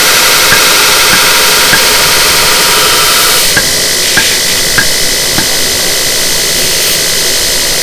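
Belt grinder running with a steel knife blade held against the abrasive belt, a steady grinding hiss with a light tick repeating a little under twice a second. The grinding sound shifts about halfway through as the pressure on the blade changes.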